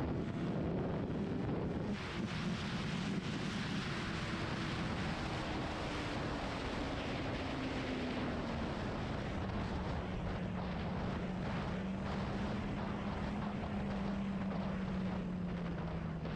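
Sport motorcycle engine running, its note falling steadily as the bike slows and then holding at lower revs, under a constant rush of wind on the microphone.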